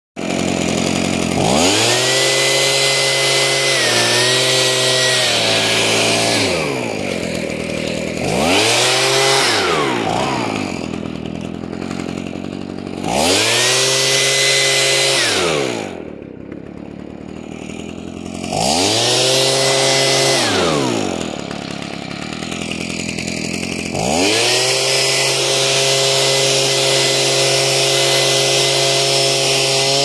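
Small gas-engine blower blasting snow off buried redwood saplings. The engine is opened up to high revs about five times, falling back to idle between bursts, with a loud rush of air while it runs fast. It stays at high revs through the last part.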